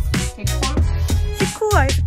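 Background hip-hop music with a heavy bass beat and regular drum hits.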